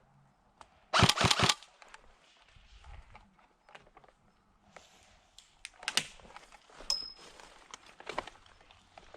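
Airsoft gun firing a quick burst of about five sharp shots about a second in, followed by scattered fainter snaps and crackles, with single louder ones near the middle and again later.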